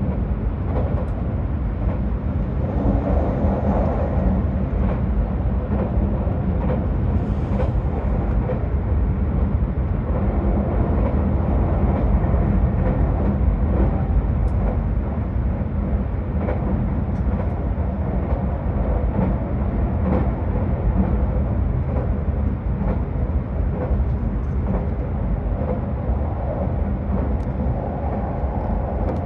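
Keisei Morning Liner limited express train running at speed, heard from inside the passenger car: a steady, even rumble of running noise, heaviest in the low end.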